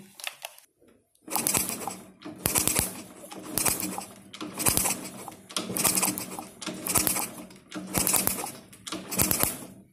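A Honda C90's single-cylinder four-stroke engine being kicked over with the kick-starter, about once a second, eight times. Each kick gives a short clatter of the kick-start gear and the turning engine. It is a spark test with the plug out and held against the head, which shows that the repaired coil-to-CDI wire now delivers current.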